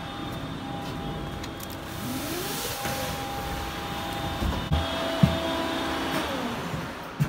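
Factory machinery running with a steady, multi-tone drone, a motor whine rising in pitch about two seconds in and a few sharp knocks. Near the end a motor's whine falls in pitch as the metal spinning machine is switched off at its stop button, and the drone drops.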